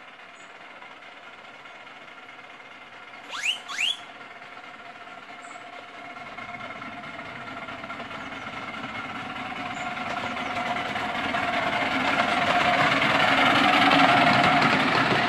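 Two short rising whistle toots in quick succession about three and a half seconds in. Then a miniature railway train approaches, its running noise growing steadily louder and peaking near the end.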